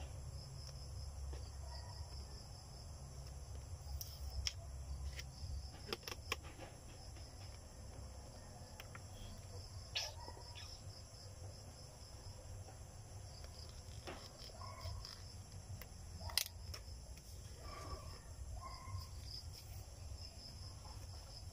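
Faint scattered clicks and crinkles of a plastic bottle and its paper sticker label being handled, over a steady high chirring of insects.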